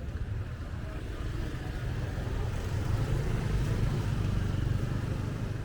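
A motor vehicle passing close by on the street, its low engine rumble swelling to a peak midway and fading toward the end, over steady street noise.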